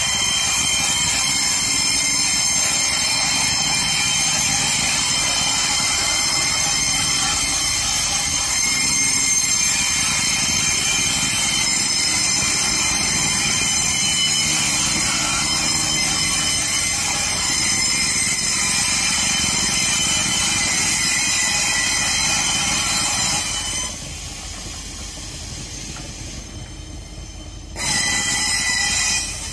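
Railway passenger coaches rolling slowly in reverse, their steel wheels squealing on the rails with several high, steady tones at once over a low rumble. The squeal drops away about twenty-four seconds in and comes back briefly near the end.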